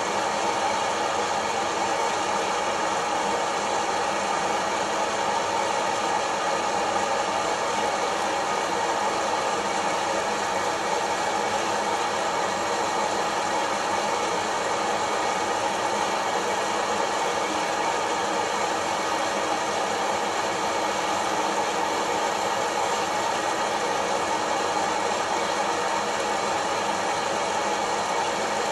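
Kaffelogic fluid-bed coffee roaster running mid-roast: its hot-air fan blows steadily while coffee beans rattle and tumble in the clear roasting chamber.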